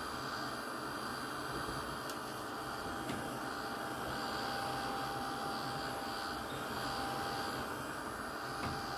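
Small electric heat gun running steadily, its fan blowing hot air to dry gesso-soaked tissue paper on a canvas, with a faint steady whine under the rush of air.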